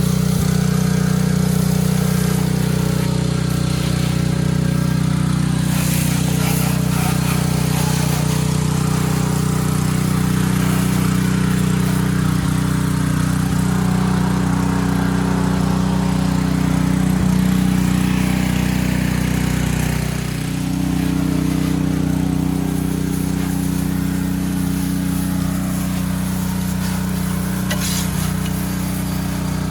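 Gas-engine pressure washer running steadily under load, with the hiss of the high-pressure spray. The engine note dips briefly about twenty seconds in, then picks back up.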